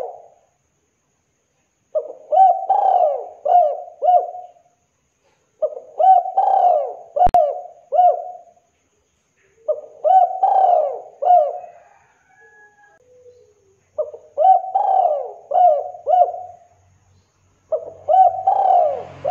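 Spotted dove cooing its short phrase of several coos, repeated five times about every four seconds. A single sharp click falls in the middle of the third phrase.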